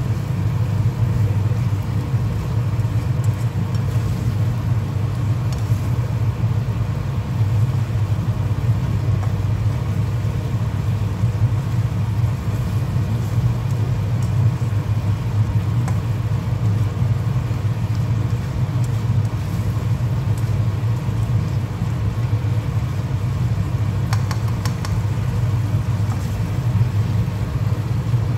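A steady low drone, with a few faint scrapes near the end from a spatula stirring fried chicken and dried chillies in a non-stick wok.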